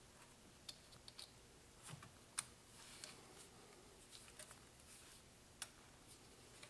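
Faint, scattered clicks and light taps of hand tools working in a tight spark plug well, with a magnet pickup tool and socket extension. The sharpest click comes about two and a half seconds in, and another comes a little before the end.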